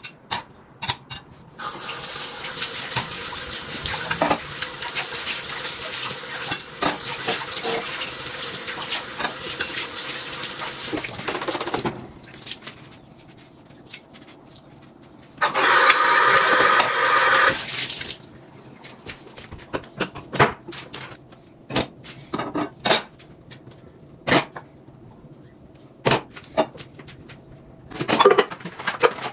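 Water running steadily from a tap for about ten seconds, then a shorter, louder stretch of water filling a container, with scattered clicks and knocks of things being handled.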